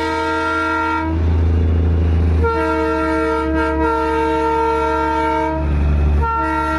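Darjeeling Himalayan Railway toy train sounding its horn in three blasts of one steady pitch: one ending about a second in, a long one of about three seconds, then a short one near the end, over a steady low rumble.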